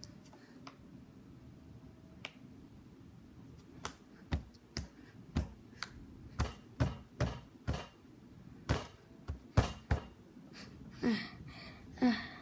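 Plastic Lego pieces clicking and snapping against each other as wheel parts are fitted: about a dozen sharp, separate clicks in the middle, then two short vocal sounds from the builder near the end.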